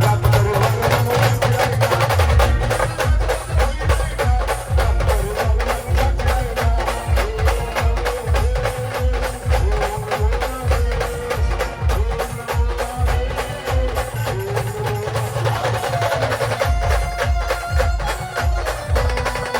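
A Marathi band playing an instrumental passage of an Ambabai devotional song. A wavering keyboard melody runs over a fast, steady drum beat, with the full band coming in sharply at the start.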